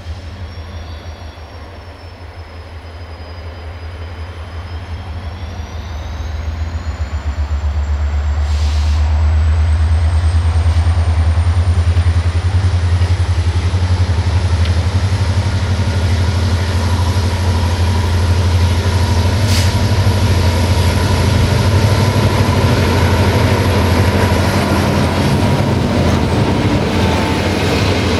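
Diesel locomotive hauling a passenger train approaches and passes. A deep engine drone grows louder over the first ten seconds and then holds, with a thin high whine gliding slowly upward in pitch, before the coaches roll by.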